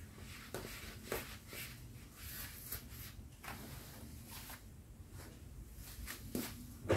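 Soft, irregular scuffing and rustling of bare feet slipping into plush slippers and sliding them on a tile floor, with a couple of louder scuffs near the end as the slippers step off.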